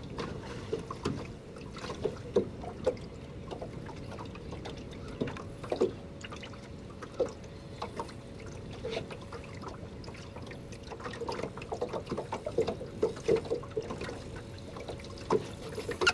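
Water splashing and trickling around the boat in many small, irregular splashes, with a faint steady hum.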